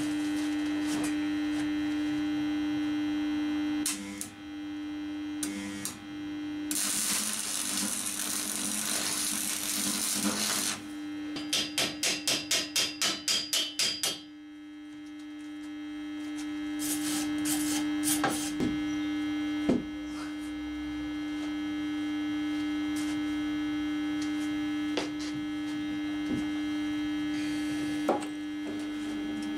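Electric welder humming steadily throughout. About seven seconds in, a welding arc crackles for a few seconds as a tack weld is laid. It is followed by about a dozen quick, ringing metal taps at roughly four a second, then a few scattered clicks and knocks.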